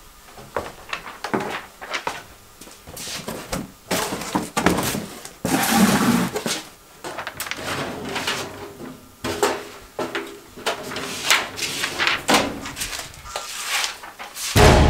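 Footsteps on wooden stairs, then a metal filing-cabinet drawer sliding and banging, with knocks, thuds and paper handling. A loud low rumble starts near the end.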